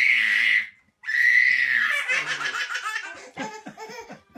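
A baby laughing in high-pitched squeals: a short burst, then about two seconds of laughter that breaks into quick pulses, tailing off into softer voice sounds near the end.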